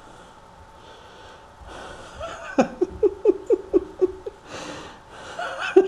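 A run of short, wheezy vocal pulses, about four a second, starting about halfway through and coming again near the end, after a quieter breathy stretch at the start.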